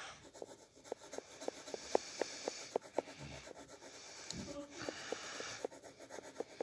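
Pencil scratching on paper in quick, short, repeated strokes, about four to five a second, as fur is hatched in, with a short break a little past the middle.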